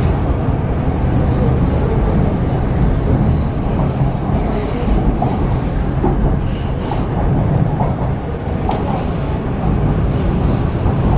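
Interior running noise of an MTR East Rail Line R-train electric multiple unit: a steady heavy rumble of wheels on rail, with faint high wheel squeals at times and a sharp click near the end. The train is approaching a station.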